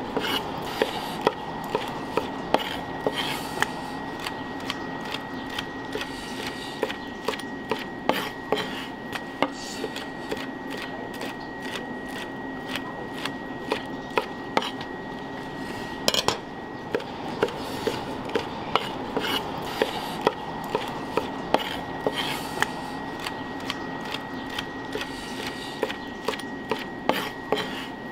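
Kitchen knife chopping glazed grilled eel on a wooden cutting board: a sharp knock on the board with each cut, about one to two a second, over a steady background hum with a faint high whine.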